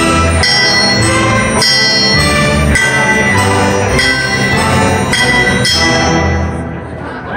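Live ensemble music with ringing struck metal hit about twice a second, fading away near the end as the piece finishes.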